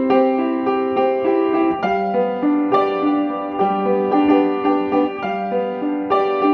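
Background piano music: a gentle melody of repeating broken-chord notes at an even pace.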